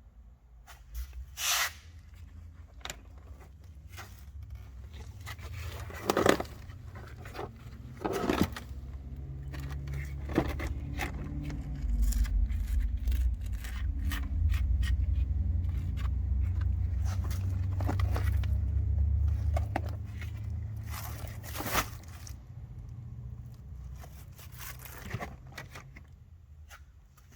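Scrapes, clicks and knocks of car interior parts and trim being worked loose and handled, irregular throughout, over a low rumble that swells from about ten seconds in and fades after about twenty.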